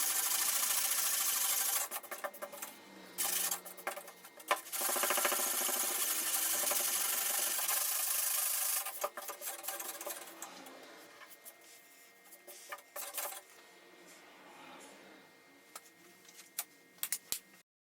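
Sanding body filler on a steel truck door: a steady, loud scratching that breaks off about two seconds in, resumes for about four seconds in the middle, then tails off into short, quieter strokes.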